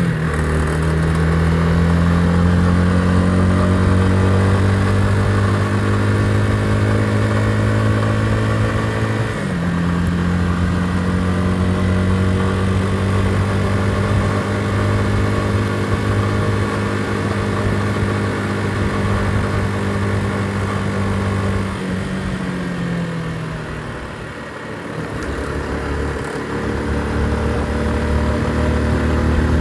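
Motorcycle engine running under way, its revs climbing slowly through a gear, with shifts near the start and about nine seconds in. About two-thirds of the way through, the revs fall away as it slows, then build again.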